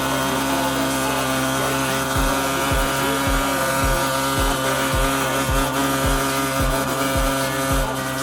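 Ferrari F12's V12 engine running at a steady idle. About two seconds in, music with a deep bass kick roughly twice a second comes in over it.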